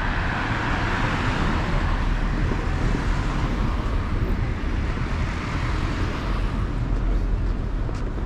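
Road traffic noise: a vehicle passing, its noise fading away over the first half, over a steady low rumble.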